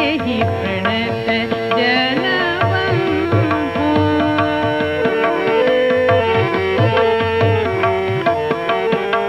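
Hindustani devotional song (bhajan) performance: tabla keeps a steady rhythm under sustained melodic lines, with gliding phrases in the first few seconds.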